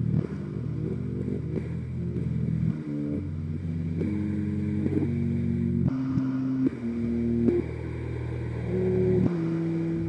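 Electronic synthesizer music: a low buzzing drone with held notes above it that step from pitch to pitch every half second to a second.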